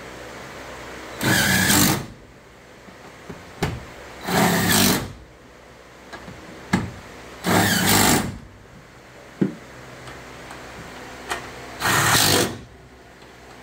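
Cordless drill running in four short bursts, a few seconds apart, driving screws in a pickup truck's tailgate, with small clicks between the bursts.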